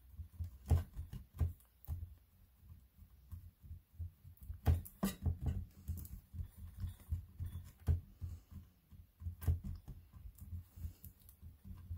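Irregular soft thumps and a few sharp clicks as hands press and handle a block of polymer clay on a plastic cutting mat.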